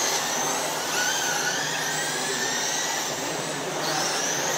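RC dirt modified race cars with 12-turn brushed electric motors running the oval: several high motor whines rising and falling with the throttle, over a steady rushing noise.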